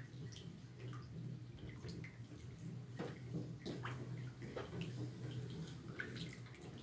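A spatula stirring a runny homemade soap mixture in an enamel basin: liquid sloshing with small splashes, drips and scrapes against the basin as sugar syrup is slowly worked in. A steady low hum runs underneath.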